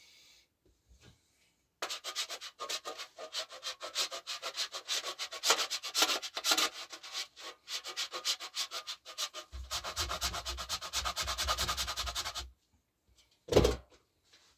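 Candle wax rasped on a metal box grater: a fast run of scraping strokes starting about two seconds in and lasting about ten seconds, then a single thump near the end.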